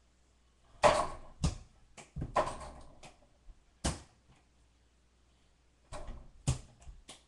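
A run of sharp knocks and thumps at irregular intervals, some trailed by a brief rustling scuff. They start about a second in, pause in the middle, and come back near the end.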